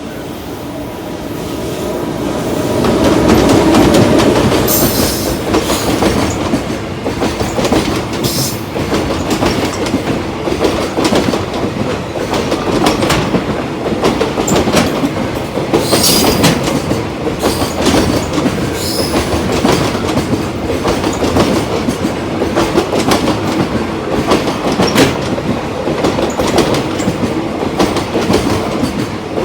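Freight train of container wagons passing close by: the sound swells to its loudest about four seconds in, then the wagons roll past with a steady clickety-clack of wheels over rail joints and frequent sharp clicks.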